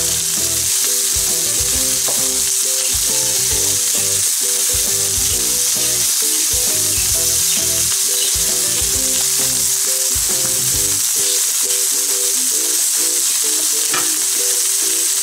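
Chopped onion, bell pepper and jalapeño sizzling steadily in oil in a nonstick frying pan, turned now and then with a wooden spatula. A soft tune of short held notes runs underneath.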